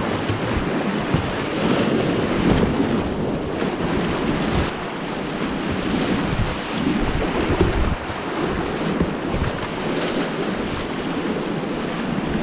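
Rushing river water, with wind buffeting the microphone.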